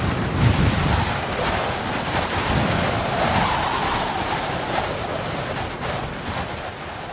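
A steady rushing noise like wind or surf, swelling about halfway through and fading toward the end.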